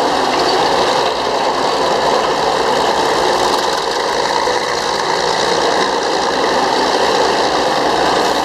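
Murphy diesel engine of a Northwest Model 6 power shovel running steadily under load as the mechanically controlled shovel digs, crowding its dipper into a dirt bank.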